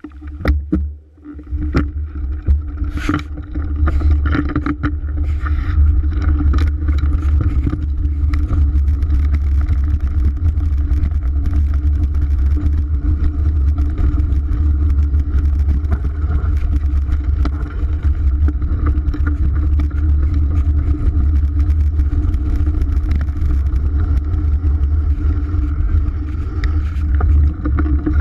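Riding noise of a mountain bike on a dirt trail, heard from a GoPro strapped to the rider's chest: a loud, steady rumble of wind buffeting the camera and knobby tyres rolling over dirt. A few sharp clicks and knocks from the bike come in the first few seconds, before the rumble settles in.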